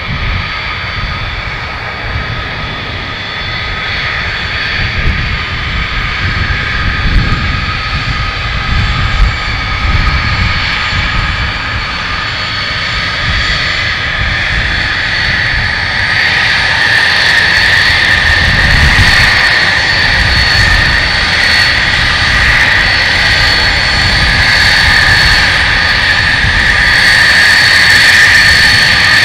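Avro RJ85's four Honeywell LF507 turbofans at taxi power: a steady high jet whine over a low rumble, growing louder as the aircraft taxis closer. From about halfway through the whine turns brighter and stronger.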